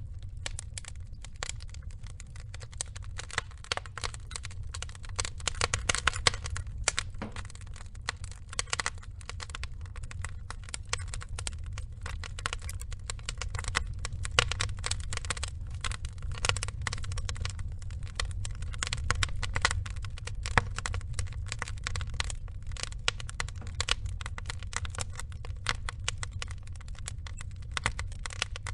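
Wood fire of burning logs crackling, with dense irregular pops and snaps, some sharper than others, over a steady low rumble.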